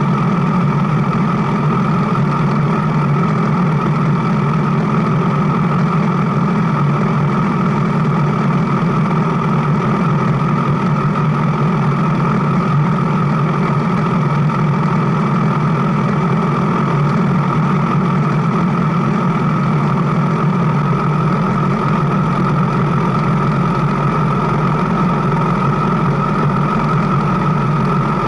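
Motorcycle engine running steadily at an even pitch, with no revving or gear changes.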